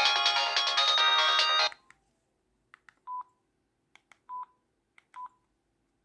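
Polyphonic ringtone of an old Samsung flip phone playing a melody, cut off suddenly about two seconds in. Then three short beeps about a second apart, each with faint clicks just before it: key presses and key tones from a basic push-button mobile phone as a call is placed.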